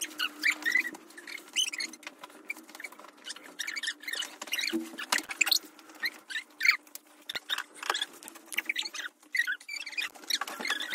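Sped-up audio of children making a bed: a rapid run of squeaky, high chirping voices and clicks, with rustling bedding.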